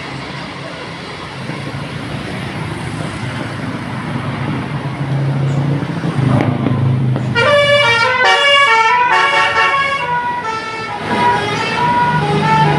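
Tour bus engine running and growing louder, then about seven seconds in a telolet multi-tone horn plays a quick tune of stepping notes, moving to longer held notes near the end.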